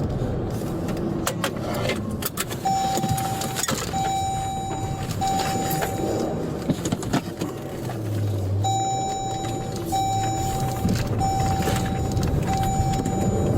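Car running, with an electronic warning chime beeping over it in a steady series of roughly one-second tones with short gaps, which pauses for about two seconds midway and then resumes.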